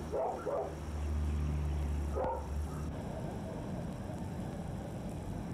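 A dog barking, twice in quick succession near the start and once more about two seconds in, over a low steady hum that stops about three seconds in.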